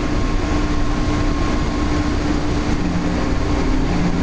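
Inside an automated airport people-mover train car: a steady rumble with a constant low hum running underneath it.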